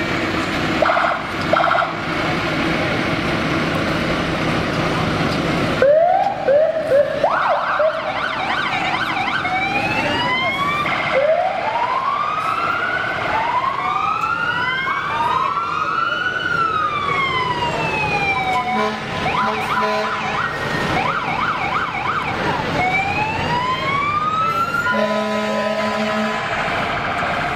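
Several fire truck sirens going at once, their pitches sliding up and down and overlapping, with short quick whoops about six seconds in. A steady horn sounds in short blasts around two-thirds of the way through and again near the end.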